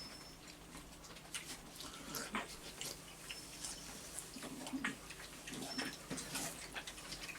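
A person chewing and smacking juicy melon, a string of irregular wet clicks and slurps.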